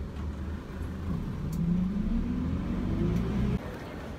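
Bus running, heard from inside the passenger cabin: a steady low engine hum with a whine that rises in pitch as the bus picks up speed. The sound cuts off suddenly about three and a half seconds in.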